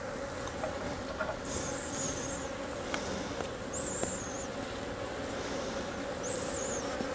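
Honeybees buzzing steadily around an open hive, with three short high-pitched chirps over the hum.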